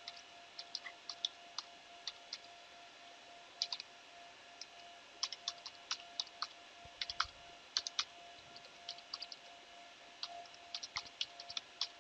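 Computer keyboard typing: irregular keystroke clicks in quick clusters with short pauses, over a faint steady hum.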